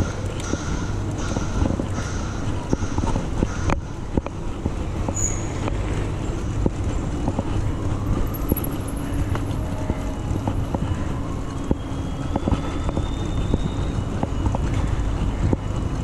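Mountain bike ridden along a city street and cycleway, heard through a chest-mounted camera: a steady low rumble of wind and tyres, with light clicks and rattles from the bike and traffic going by.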